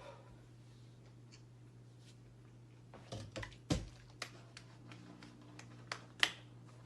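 About ten sharp clicks and taps over three seconds, starting about halfway in and irregularly spaced, over a steady low hum.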